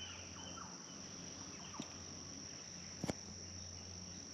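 A steady high-pitched drone of insects, with a few faint bird chirps and a low hum beneath. Two short knocks cut through, a small one a little under two seconds in and a louder one about three seconds in.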